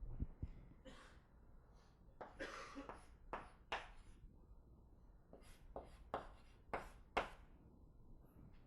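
Writing on a board: a string of short, sharp scratchy strokes, about nine of them, with one longer stroke a little over two seconds in.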